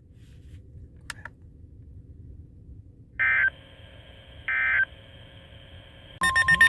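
Weather radio alert data tones: two short, loud electronic bursts a little over a second apart, the digital code that marks the end of an emergency alert message. Near the end a loud, rapidly pulsing electronic alert sound with a steady tone in it starts up, opening the next warning.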